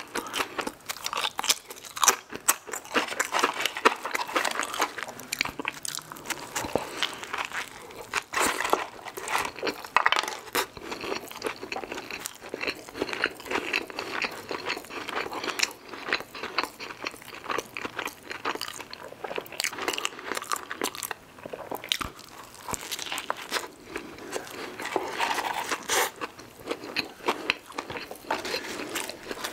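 Close-miked eating: crisp crunches of tortilla chips dipped in queso dip, then bites and wet chewing of a cheeseburger. Irregular crunching and mouth clicks go on without a break.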